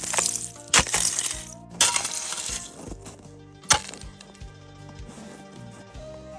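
Four sharp strikes on ice with a clinking, cracking ring, the first three followed by a hiss of scattering chips, as an ice pick is driven at thick reservoir ice that will not give. Background music runs underneath.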